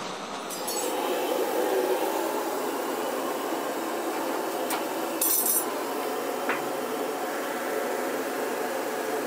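Steady rushing machine noise of a working heavy-engineering workshop. It grows louder about a second in, and a sharp clink and a brief hiss come about five seconds in.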